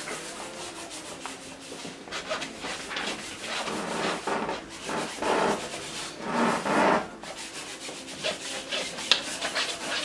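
Short, chopped strokes of a brush scrubbing thick oil paint onto stretched canvas, a series of scratchy rubs that grow louder between about four and seven seconds in.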